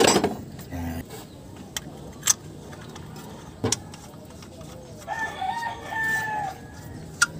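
A rooster crows once, about five seconds in, for about a second and a half. A few sharp clicks and knocks from hands working on the engine's camshaft timing pulley come through, the loudest right at the start.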